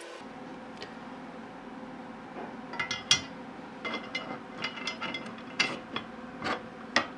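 Small metal parts clicking and knocking by hand against an aluminium frame rail while a flange bearing and its screws are fitted. The clicks are irregular, start a couple of seconds in, and a few of them are sharp and loud.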